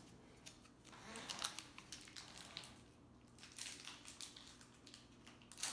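Faint rustling and crinkling of a cardboard box and trading-card packaging being handled, with scattered light clicks and taps; the sharpest click comes just before the end.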